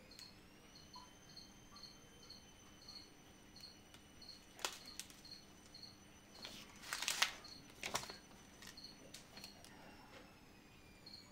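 Small plastic bags of diamond-painting drills rustling and crinkling as they are handled, a few short rustles with the longest about seven seconds in. Behind them a faint high chirp repeats about twice a second.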